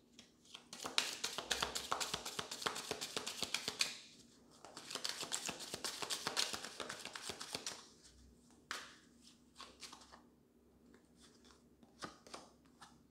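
A deck of Romance Angels oracle cards being shuffled by hand: two long runs of rapid papery clicks, the second starting about four seconds in, then only a few scattered card taps after about eight seconds.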